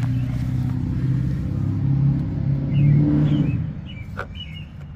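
An engine running steadily, rising a little in pitch about two seconds in, then fading away after about three and a half seconds. A few faint bird chirps near the end.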